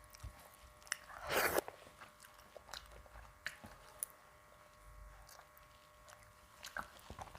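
Close-miked chewing and mouth sounds of a person eating, soft clicks and smacks, with one louder bite a little over a second in.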